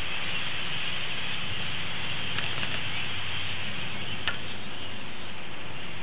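A huge winter flock of blackbirds calling all at once, merging into a steady hissing din in which no single call stands out.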